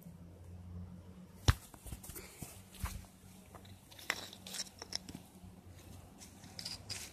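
Scattered crunching and rustling of soil being dug through and turned over, with one sharp click about a second and a half in.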